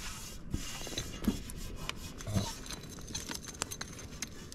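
Light rubbing with scattered small clicks and knocks, over a steady hiss.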